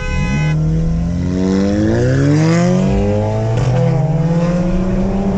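Car engines accelerating hard from a roll, their pitch climbing steadily, with a gear change about three and a half seconds in before the note climbs again.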